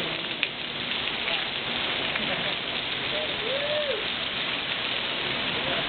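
Heavy summer monsoon rain falling steadily, a dense even hiss of rain on the ground and surfaces, with one sharp tap about half a second in.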